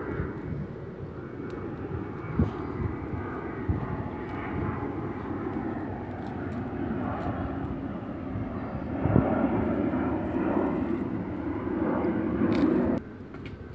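Steady rumble of an aircraft passing overhead. It swells about two-thirds of the way through, then stops suddenly near the end.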